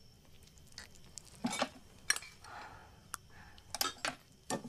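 Crockery and glass clinking: a handful of short sharp clinks, with a soft rustle in the middle, as sugar is put into a glass of water.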